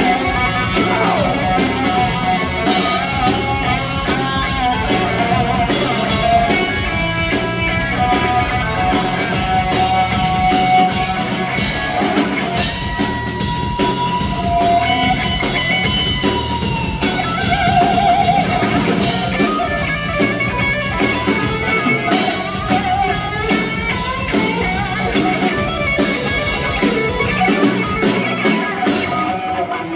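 A live rock band plays an electric guitar lead over drums, with long held notes that bend and slide in pitch.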